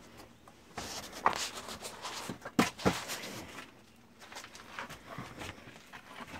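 Scuffing and shuffling of people moving and climbing about in a cramped space, with a few sharp knocks about a second in and twice near the middle.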